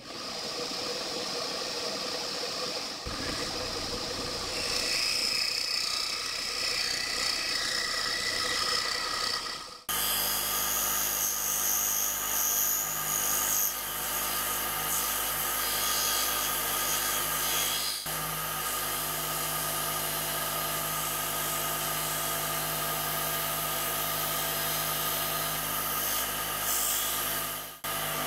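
Scroll saw running and its reciprocating blade cutting through a thick basswood ornament blank, a steady mechanical hum and buzz. The sound shifts abruptly about ten seconds in and briefly dips near the end.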